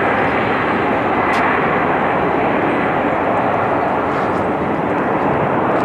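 Steady jet engine noise from a Delta Boeing 767-400 rolling along the runway.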